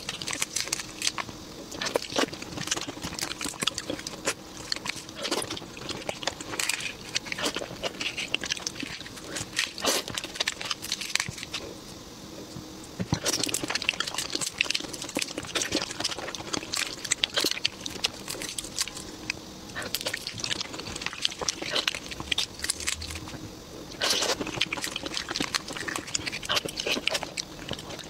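Eating raw giant red shrimp: shells peeled and cracked by hand, with wet sucking of the heads and chewing. Irregular crackles and clicks come in busier spells with short lulls between them.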